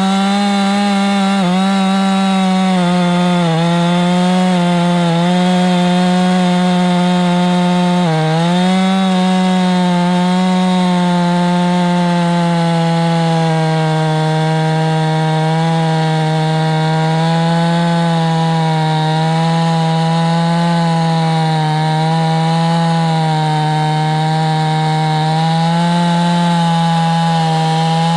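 Husqvarna 450 Rancher 50cc two-stroke chainsaw running at full throttle while cutting through a wet log. The engine pitch dips briefly several times as the chain loads up in the cut, most sharply about eight seconds in.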